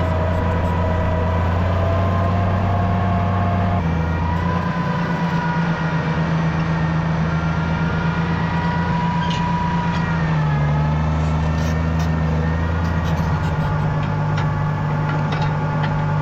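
Farm tractor engine running steadily under load, its pitch stepping to a new level twice.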